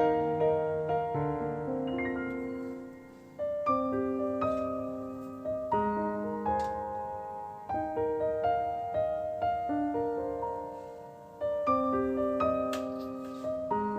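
Soft background piano music: single notes and chords struck slowly, each ringing and fading, with brief pauses between phrases.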